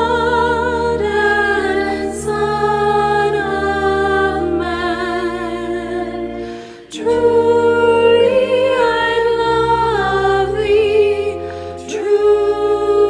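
Choir singing a slow hymn in long-held, vibrato notes over sustained accompaniment chords, with a short breath between phrases about seven seconds in.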